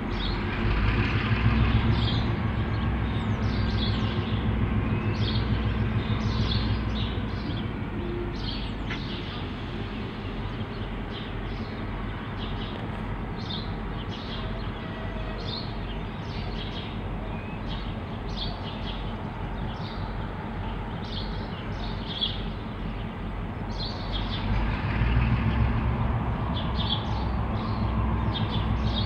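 EMD G22AR diesel-electric locomotives with two-stroke EMD 645 V12 engines running at low power while shunting slowly. The low engine rumble swells about a second in and again near the end. Small birds chirp throughout.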